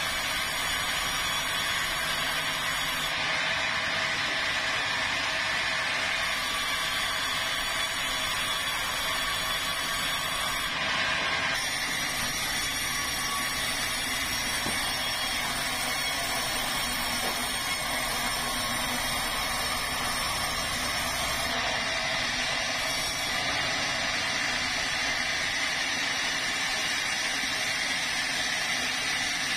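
Band sawmill running steadily, its blade sawing lengthwise through a meranti log.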